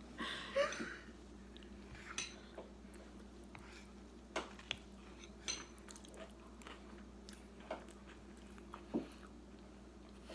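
Metal spoons clicking and scraping against bowls, with soft chewing of ice cream and brownie; a short laugh near the start.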